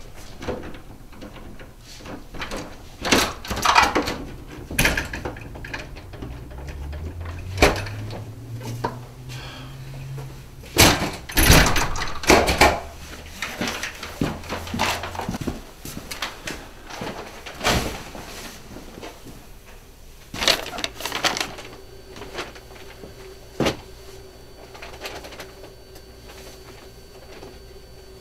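Scattered knocks, bumps and clatter of household objects being handled and moved. A low hum rises in pitch for a few seconds about a third of the way in.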